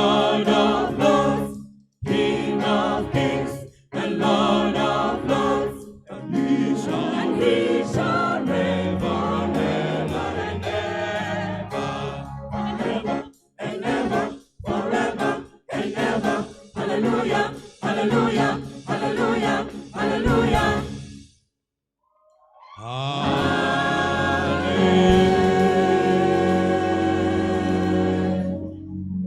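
Choir singing a gospel hymn in short phrases separated by brief breaks, then falling silent for about a second near the middle before resuming with long held chords.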